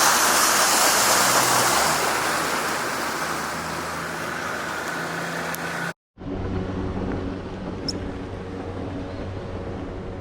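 Boat's outboard motor running, with wind and water noise over it that eases after about two seconds. An abrupt cut about six seconds in leads to a steady low motor hum.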